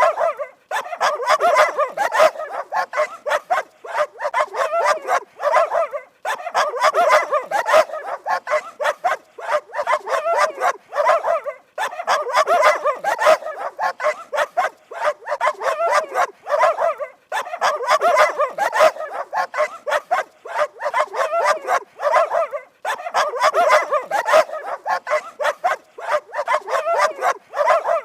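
Dog barking rapidly and repeatedly, in runs of about five seconds broken by short pauses.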